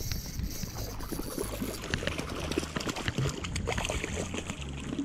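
Hooked trout thrashing and splashing at the water's surface, with strong wind rumbling on the microphone.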